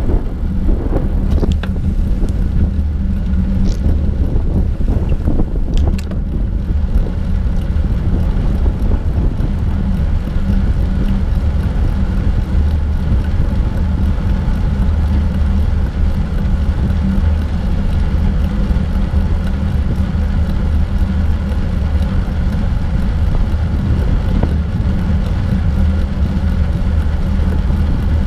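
Wind buffeting a bike-mounted action camera's microphone while cycling on a paved trail: a loud, steady low rumble, with a few brief clicks in the first several seconds.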